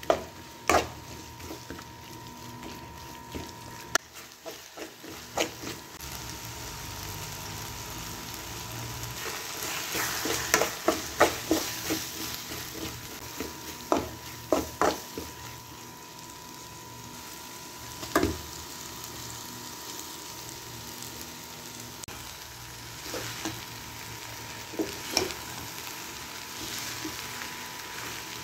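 Onions and tomatoes frying in a metal pan with a steady sizzle, while a metal spoon stirs and scrapes through them, clinking sharply against the pan at irregular moments, in a quick run about ten seconds in.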